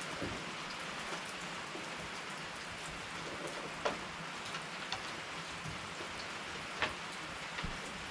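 Steady rain falling, with a few sharp ticks standing out above it, the loudest about four and seven seconds in.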